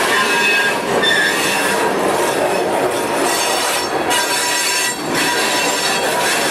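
Covered hopper freight cars rolling past close by, their steel wheels rumbling steadily on the rails with thin high squeals from the wheels.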